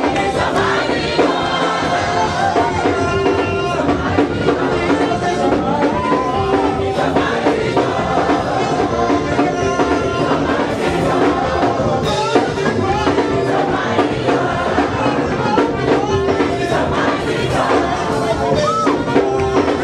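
Loud live gospel praise music: voices singing over a steady, driving beat, with a crowd of voices from the congregation mixed in.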